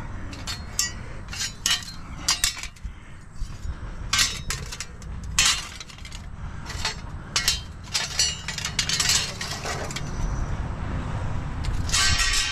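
Thin metal hurricane straps clinking and clattering against each other as the scrap pile is handled, in an irregular string of sharp clinks, with a louder, denser clatter near the end.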